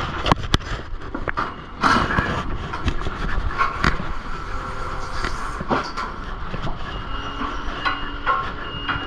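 Low engine rumble under a string of knocks and clanks, the loudest cluster about two seconds in. Faint short beeps sound near the end.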